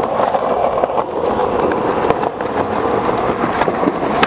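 Skateboard wheels rolling over concrete pavement: a steady rumble with a few faint clicks.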